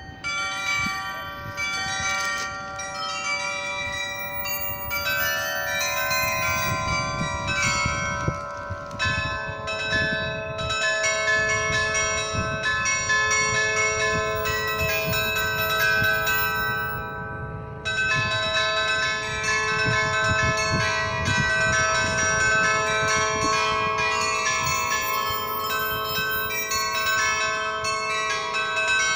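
The Swiss glockenspiel's set of tuned bells playing a tune for the hourly chime, one note after another with each ringing on and overlapping the next. There is a brief break about eighteen seconds in before the bells carry on.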